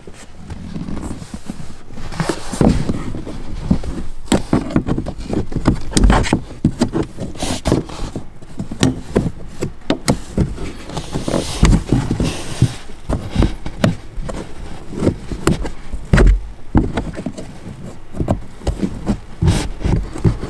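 Hands and a plastic trim tool prying and scraping at the factory Harman Kardon mid-range speaker in a car's rear parcel shelf, with irregular clicks, knocks and rustling close to the microphone.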